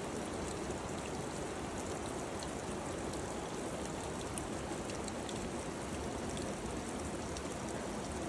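Water dripping off the ledges of a wet, mossy rock face, a steady patter of falling drops with a few sharper drip ticks.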